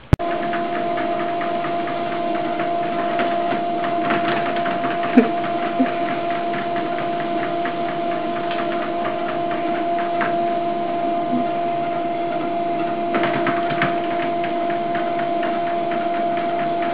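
Electric treadmill running, its motor giving a steady hum with a light, regular ticking from the moving belt, and a couple of short knocks about five seconds in.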